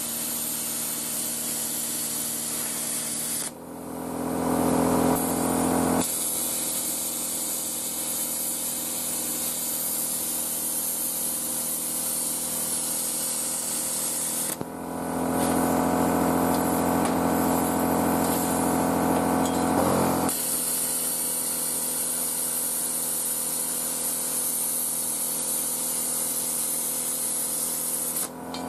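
Parkside PPSK40A1 plasma cutter cutting 0.8 mm steel sheet: the arc and its air jet make a loud, steady hiss. The hiss stops about three seconds in and again about halfway, each time for a few seconds, and the cutter's built-in compressor is then heard as a louder humming drone. The drone returns near the end.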